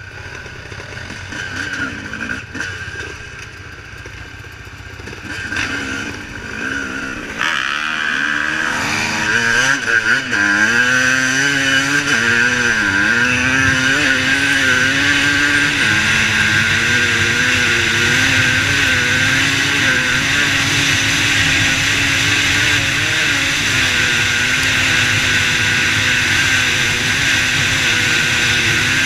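Dirt bike engines idling, then one motorbike pulls away about seven seconds in. Its engine rises in pitch and dips at each gear change, then runs at a steady pitch at cruising speed, with wind noise underneath.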